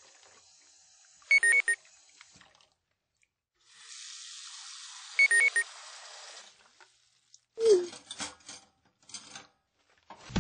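Messaging-app notification tones: a short chime of quick high pips about a second in and again about five seconds in, then a falling 'bloop' near eight seconds, as chat messages arrive. A steady hiss like a running kitchen tap fills a few seconds in the middle.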